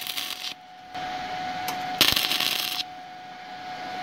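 MIG welder tack-welding steel exhaust tubing: a crackling arc that stops about half a second in, then a second tack about two seconds in lasting just under a second. A steady faint tone hums between the tacks.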